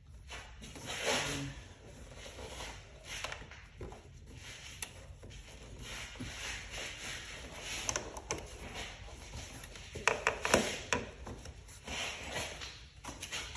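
Hands fitting throttle body and intake parts back onto a car engine: irregular rubbing and scraping of parts, with a quick run of sharp clicks about ten seconds in.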